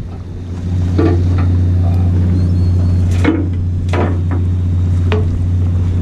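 Several sharp knocks and clatters of hooks and hairtail striking the boat's metal gunwale as a multi-hook line is hauled over the rail, over a steady low hum.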